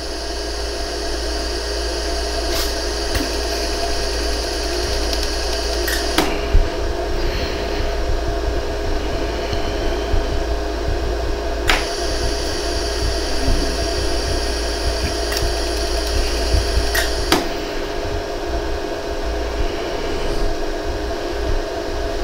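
Jewelry laser welder running with a steady hum, and about seven sharp clicks at irregular intervals as single laser pulses fire to fuse fine gold filler wire into pinholes in a hollow gold earring.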